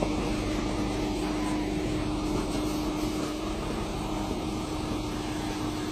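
Audi A6 quattro estate's engine running under steady load as it tows a stuck lorry on a strap, with tyre noise in the slush. A steady drone with one held note.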